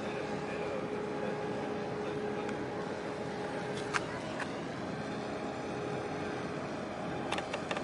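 Steady distant harbour machinery hum with a couple of faint held tones. A single sharp click comes about four seconds in, and a run of small clicks begins near the end.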